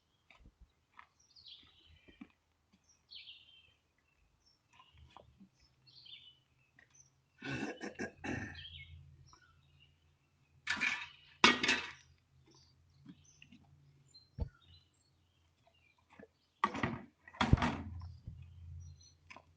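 Small birds chirping with short high calls throughout, broken three times by loud, rough bursts of noise, the last two each made of two quick strokes.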